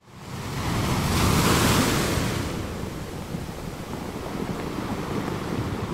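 Waves washing with wind noise, fading in and swelling to a peak with a hissing wash a second or two in, then settling into a steady rush.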